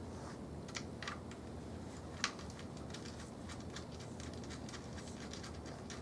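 Light metallic clicks and taps of a nut and washer being turned by hand onto a battery terminal bolt, with one sharper click a little after two seconds in.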